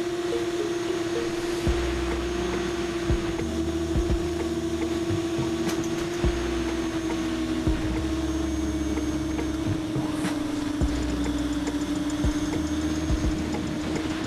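Brushless motors and propellers of a 7-inch FPV quadcopter whining steadily in cruise, the pitch sinking slightly and rising again near the end. Scattered clicks and a low rumble from wind on the onboard camera's microphone come and go.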